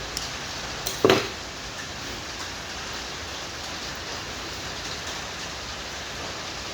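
One sharp snap of a battery spot welder firing about a second in, joining 0.2 mm nickel strip to the lithium cells, preceded by a couple of faint clicks. Under it runs a steady hiss that sounds like rain.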